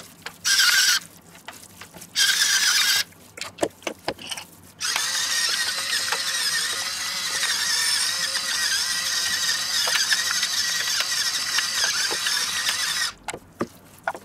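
Electric spice mill grinding salt and pepper: two short bursts, then one long steady run of about eight seconds.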